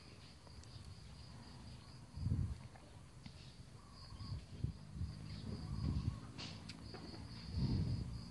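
A steady, pulsing high-pitched insect chirp in the background, with several dull low thumps, the loudest about two seconds in and near the end.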